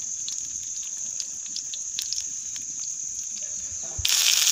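Masala-stuffed okra crackling lightly in hot oil in a shallow pan, with scattered small spits, under a steady high trill of crickets. About four seconds in, a loud frying sizzle starts suddenly.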